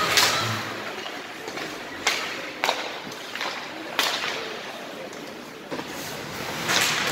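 Several sharp cracks of hockey sticks and the puck striking the ice and boards, ringing in the arena, over the rink's steady background noise. The first crack is the loudest.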